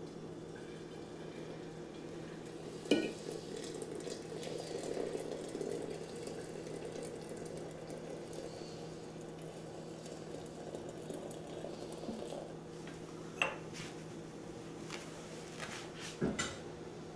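Water poured from a stovetop tea kettle into a ceramic mug, with a sharp clink of crockery about three seconds in and two more clinks later, the last near the end, over a steady low hum.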